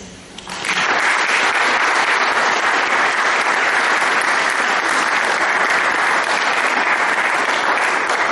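Audience applauding: a steady round of clapping from many hands that comes in about half a second in and holds evenly.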